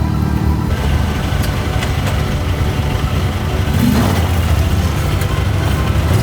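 UTV engine running steadily, a low even engine hum with some rattle and noise over it.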